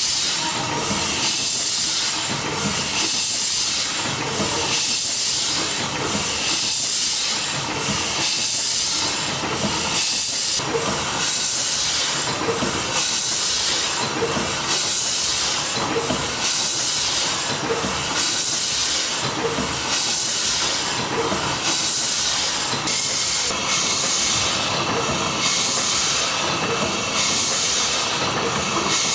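Horizontal stationary steam engine running on compressed air, its exhaust hissing in an even rhythm of a little over one puff a second.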